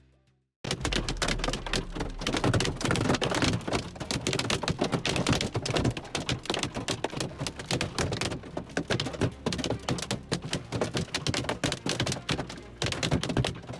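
Dense, irregular patter of many small sharp impacts, tapping and crackling rapidly. It starts abruptly about half a second in.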